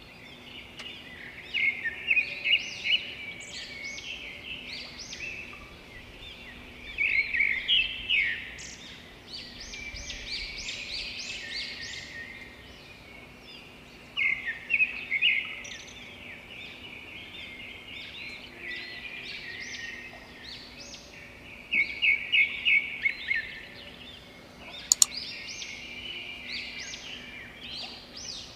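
Small birds chirping and twittering in repeated bursts over a faint steady hum, with one sharp click near the end.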